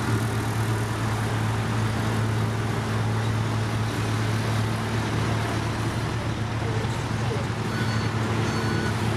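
Heavy diesel engines of a dump truck and a tracked paver running steadily with a constant low hum. A few short high beeps come near the end.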